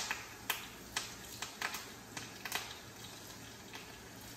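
Fresh curry leaves crackling and popping in hot oil in a frying pan: a run of sharp pops, quick at first and thinning out toward the end.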